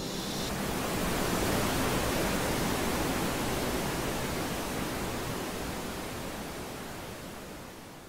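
Tall waterfall about 50 m high, a steady, even rush of falling water that fades away near the end.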